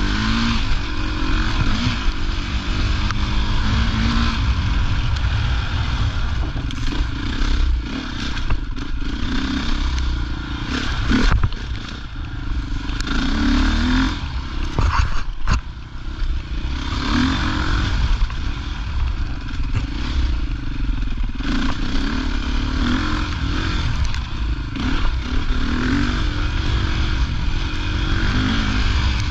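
Enduro motorcycle engine revving up and down again and again as it is ridden along a rough dirt trail, with occasional knocks and rattles from the bike over the ground.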